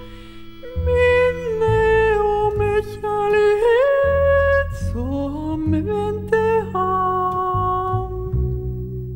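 A woman's voice singing a slow, wordless melody, holding notes and sliding between them, over a double bass playing low notes underneath.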